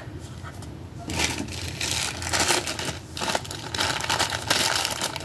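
Thin clear plastic bag holding small nail-drill sanding bands being handled and crinkled, starting about a second in.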